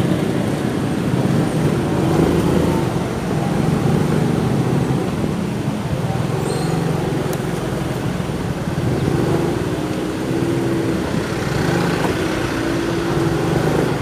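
City street traffic heard from a moving motorcycle in slow traffic: the bike's small engine running steadily under the general noise of surrounding cars.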